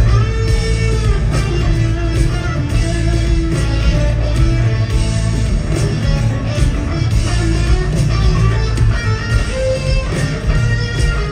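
Live rock band playing: a Telecaster-style electric guitar plays a lead line of held notes that bend up and down in pitch, over a steady bed of bass and backing instruments.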